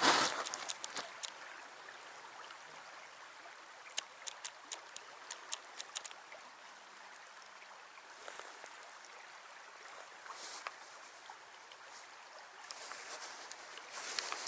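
Creek water running steadily, with a few light clicks between about four and six seconds in.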